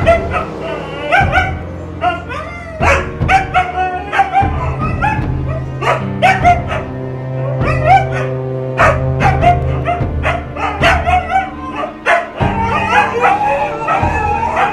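Two Siberian huskies barking and yipping back and forth in short, bending calls, breaking into howling together near the end. Background music plays underneath.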